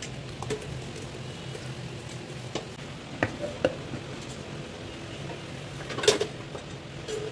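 Scattered clicks and knocks of a blender jar and a plastic storage jar being handled as paste is tipped in and a plastic screw lid is put on, the loudest knock about six seconds in. A steady low hum runs underneath.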